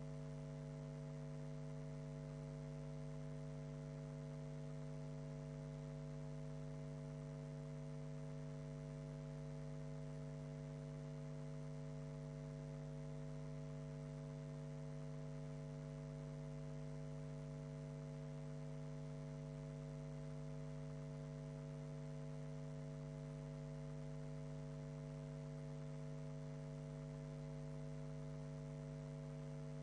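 Steady electrical mains hum, a low buzz that never changes, with no speech or other sound over it.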